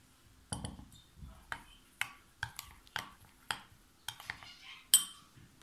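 A metal spoon stirring melted white chocolate in a glass bowl, clinking and scraping against the glass in a run of sharp ticks about two a second, the loudest near the end. About half a second in there is a dull knock as the glass bowl is set down on a wooden cutting board.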